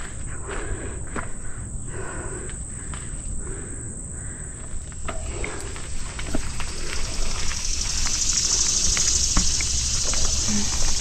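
A steady, high-pitched insect chorus from the woods, swelling louder about two-thirds of the way through, over the low rumble and scattered ticks of a mountain bike rolling along a dirt trail.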